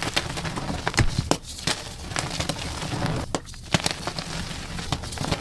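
Chalk being crushed and crumbled, a dense, irregular run of small crunches and crackles.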